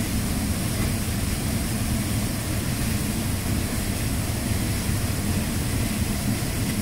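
Steady rush of a river's flowing water pouring into a rock pool: a constant low rumble with a hiss over it.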